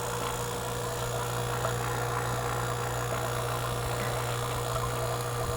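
JB vacuum pump running steadily with a low hum, evacuating an air-conditioning system.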